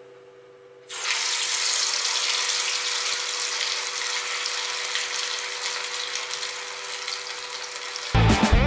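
Sizzling of a meatball deep-frying in hot oil in a small pot: a loud, steady hiss that starts suddenly about a second in as the raw meatball goes into the oil. Guitar music cuts in near the end.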